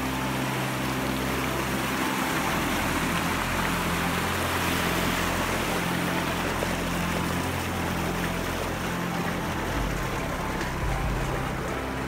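Fast-flowing rocky desert creek running, a steady rush of water.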